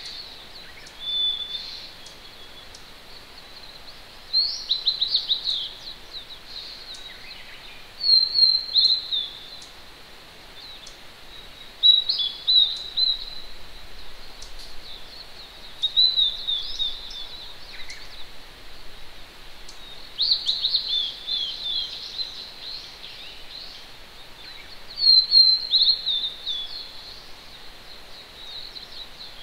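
A small songbird sings short, quick phrases of high, downward-sweeping notes, one about every four seconds. Under it runs the steady hiss of a distant mountain stream.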